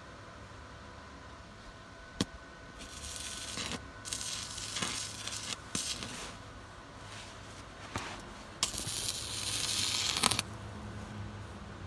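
Stick welder arc crackling and sizzling in several bursts of a second or two, with short quiet gaps between, over a steady low hum. A sharp click comes about two seconds in.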